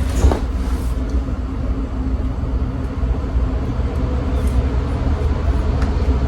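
A hair dryer blowing steadily, drying the lace glue: a low rumble of air with a faint motor hum.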